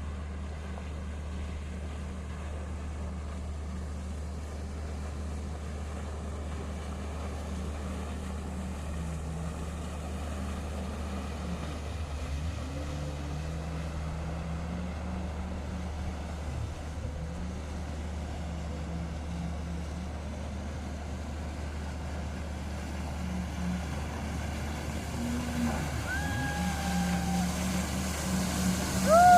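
Jet ski engine running over water, its pitch rising and falling as the throttle changes. Near the end a few short falling high tones sound over it.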